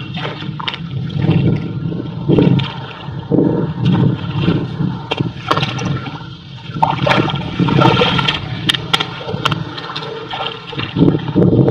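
Shallow muddy water sloshing and splashing in irregular surges as hands work in it around a woven bamboo fish trap, with scattered sharp clicks and knocks.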